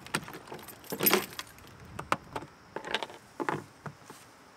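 Keys jangling in the lock of an RV's exterior water-fill hatch, with a string of sharp plastic clicks and knocks as the hatch is unlocked and opened and a garden hose is fitted to the fill inlet.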